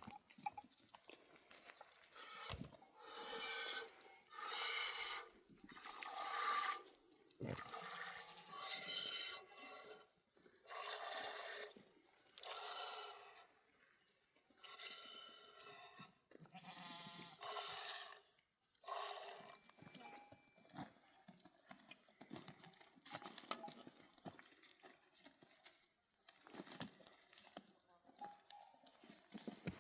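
Goats bleating, one call after another, with about a dozen separate calls of a second or two each.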